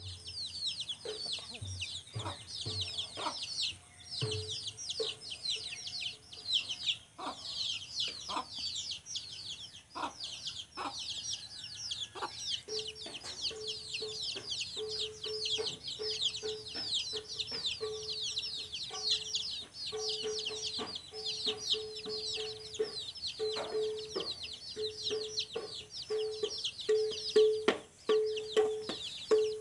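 Chickens: a constant chorus of rapid, high peeping chirps, joined about twelve seconds in by a low clucking note repeated about twice a second.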